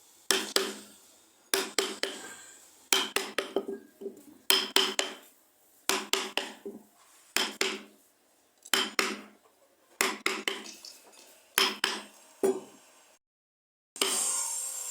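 Hammer tapping in quick clusters of two to four strikes, about one cluster every second and a half, each strike ringing briefly. Near the end, after a short break, a steady rasping scrape starts.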